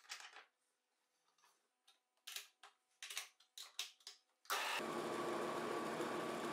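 A few light clicks and knocks of metal fittings and a small tool being handled, then about four and a half seconds in a homemade plywood lathe's motor switches on and drives the attached belt sander, running with a steady, even whir.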